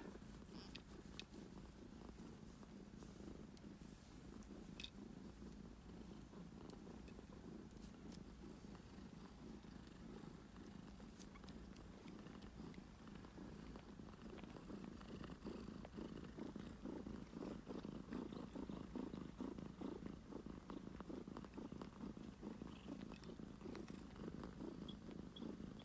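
Domestic cat purring steadily up close, in a fast continuous rumble that grows a little louder past the middle.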